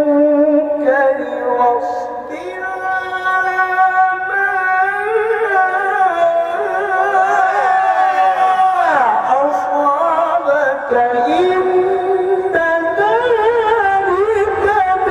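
Qur'anic recitation (tilawah) sung in long, ornamented melodic phrases: held notes that waver and slide, with a fast sweeping run of rising and falling glides around the middle.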